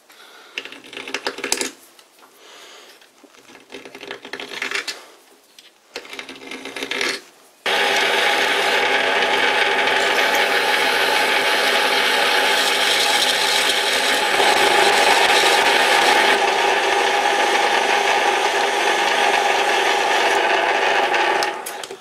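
Handheld deburring tool scraping on the metal thread of a workpiece in a lathe chuck, in short irregular strokes. About eight seconds in, the metal lathe starts and runs steadily with a many-toned whine that shifts slightly in pitch about halfway through, then stops just before the end.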